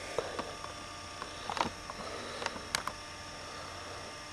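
A handful of small, irregular clicks and taps from handling, over a steady electrical hum.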